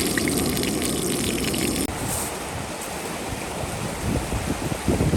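Outdoor ambience: a steady rush like running water, which cuts off abruptly about two seconds in, after which wind gusts buffet the microphone.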